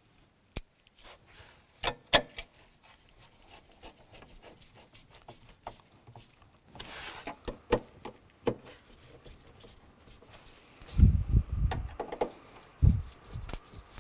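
Hand Phillips screwdriver tightening screws into a metal trim plate: scattered sharp clicks and scraping of the tool in the screw heads, with a few dull thumps near the end.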